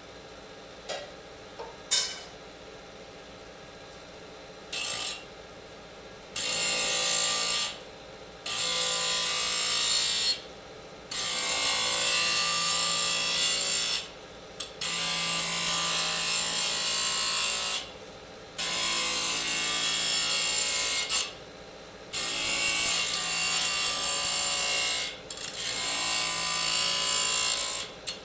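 Disc saw cutting aluminium in about seven separate passes of two to three seconds each, a harsh high-pitched grinding screech with short pauses between. A few faint clicks come first, before the cutting starts about six seconds in.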